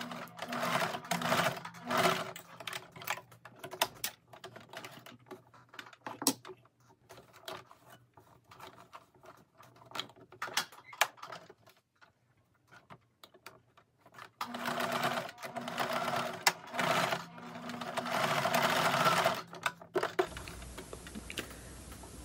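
Home electric sewing machine stitching through linen in short runs, securing the pocket openings. It starts and stops, with a pause of several seconds in the middle that holds only scattered small clicks and handling noises before it runs again.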